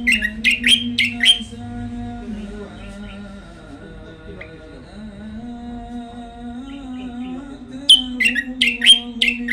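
Caged songbird singing a short phrase of four or five quick, falling chirps, once at the start and again near the end, over a steady background of music.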